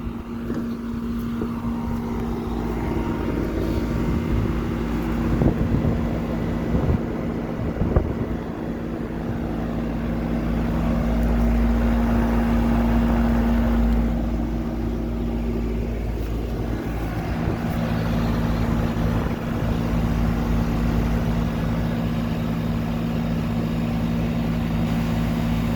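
Central air conditioner's outdoor condenser unit running steadily: a continuous compressor and fan hum with a few fixed low tones. It has been running non-stop under heavy load and is struggling to cool the house. A couple of brief knocks come a few seconds in.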